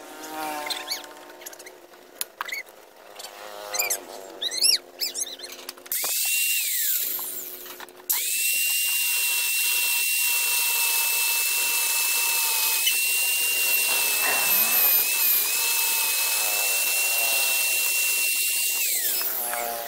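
Electric angle grinder cutting into the plastic casing of a motorcycle ignition coil held in a vise. It spins up briefly about six seconds in, then runs steadily for about eleven seconds with a high whine that dips slightly as the disc bites, and winds down near the end.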